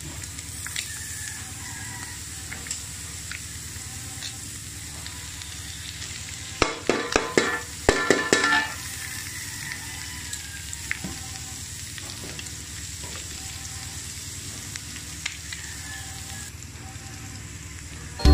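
Ground pork frying with a steady sizzle in a metal wok as chopped onion and garlic go in. A short run of sharp clatter comes about seven to nine seconds in.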